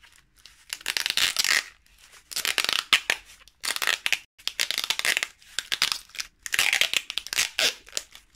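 Clear packing tape being pulled off its roll and wound around a rolled cardboard tube, with a crackling tearing sound in four long pulls and short pauses between them.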